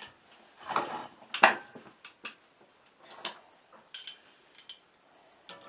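Irregular handling noises: clicks and light metallic knocks, the loudest about a second and a half in, with small ticks later on.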